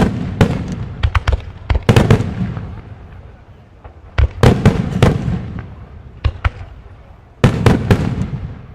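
Wide starmine fireworks bursting at fairly close range: clusters of sharp, loud bangs, near the start, about one to two seconds in, around four and a half seconds and again near the end, each trailing off in a low rumbling echo, with brief lulls between.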